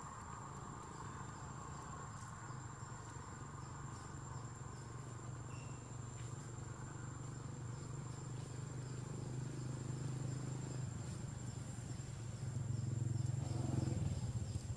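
Insects droning outdoors: a steady high thin whine with evenly repeated short chirps. A low rumble underneath grows louder about twelve seconds in.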